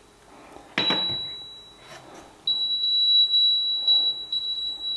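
HYSapientyia air fryer oven's control panel beeping as its temperature dial is turned: a high-pitched beep about a second in, then a longer run of beeps with short breaks from about halfway on.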